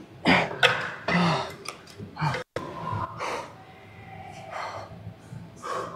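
A person breathing hard in sharp exhales and gasps, several in quick succession and then more spaced out, from exertion during a weight-training set. The sound cuts out for an instant about two and a half seconds in.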